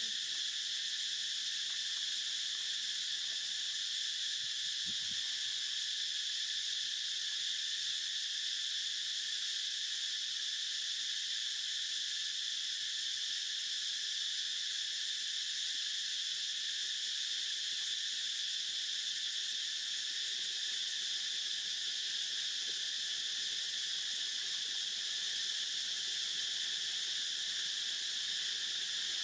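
A steady, unbroken chorus of insects: a high, shrill drone that holds an even level throughout.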